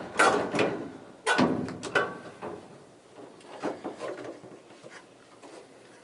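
Clunks and scrapes of a Speed Queen dryer's sheet-metal cabinet being taken apart by hand. Several knocks come in the first two seconds and a couple more near the middle, then only faint handling noise.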